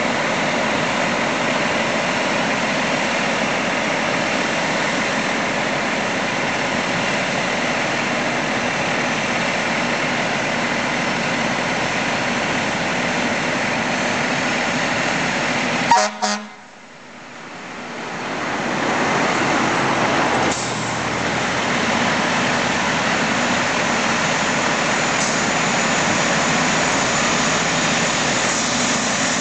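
Fire engine's diesel engine running steadily, rising as the truck pulls out of the station bay. About halfway through, the sound clicks and briefly drops out, then returns.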